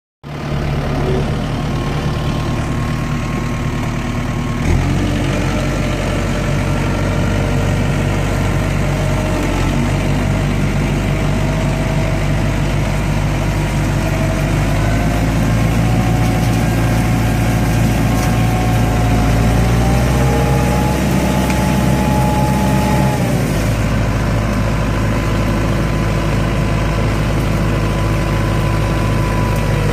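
Kubota tractor's diesel engine running steadily. About five seconds in there is a thump and the engine note deepens. A thin whine creeps upward in pitch and cuts off a little past twenty seconds.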